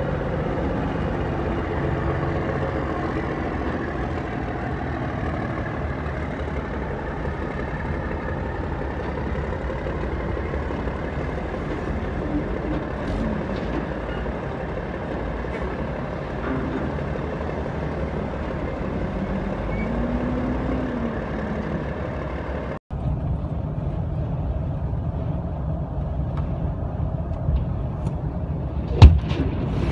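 Heavy diesel dump truck engines running steadily. The sound cuts abruptly to another truck's running engine, and near the end there is one loud, sharp bang.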